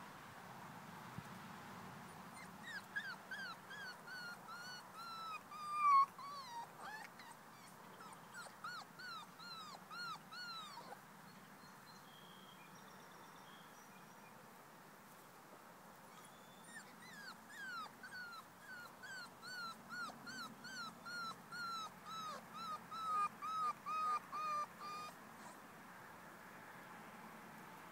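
Miniature American Shepherd puppy whimpering: short, high cries that drop in pitch, two or three a second. They come in two bouts with a pause of about five seconds between them, and one louder cry sits about six seconds in.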